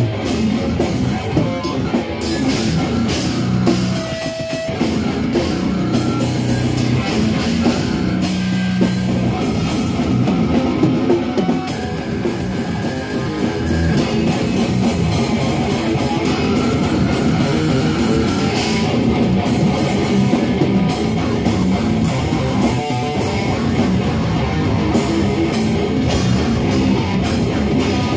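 A rock band playing live: electric guitar and drum kit going steadily and loudly, in a heavy rock style.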